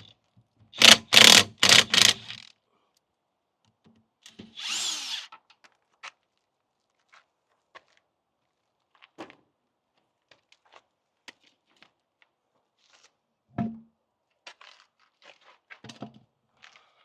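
A power tool run in about four quick bursts, loosening the wheel bolts to take a car wheel off, then one shorter burst a few seconds later. Small clicks of parts being handled follow, with a single heavy thump near the end.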